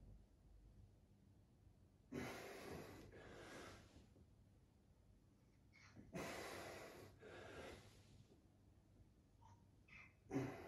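Faint breathing during a held seated twist: two slow breaths, each lasting about two seconds, come about two and six seconds in, and a third begins near the end.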